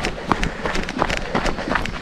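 Footsteps of a hiker on a dirt trail, a quick steady stride of about four short steps a second.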